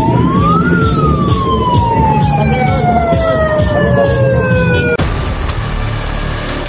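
Siren wailing for the earthquake drill alert: its pitch rises to a peak about a second in, then falls slowly over about four seconds, over a low rumble. About five seconds in it cuts abruptly to a steady rushing hiss.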